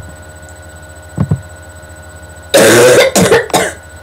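A person coughing hard three times in quick succession about two and a half seconds in, the first cough the loudest, after a small throat sound about a second in. It is the lingering cough of someone who has been sick.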